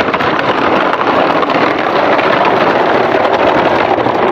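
Plastic toy dump trucks rolling over dirt and gravel, their wheels and bodies making a steady, dense crunching rattle.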